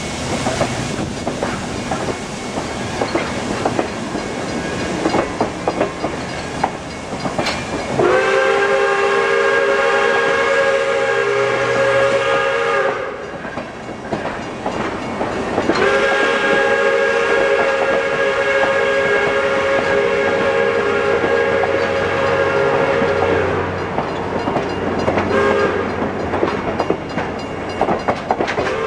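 Pere Marquette 1225 steam locomotive passing with the clatter of its running gear and wheels, then sounding its chime whistle: two long blasts, a short one, and the start of a final long one, the grade-crossing signal.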